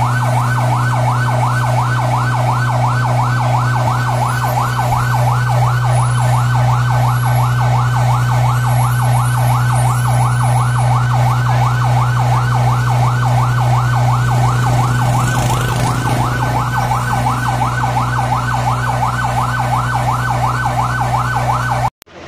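Emergency vehicle siren in its fast yelp, rising and falling about three to four times a second over a steady low hum, loud and even throughout. It cuts off suddenly near the end.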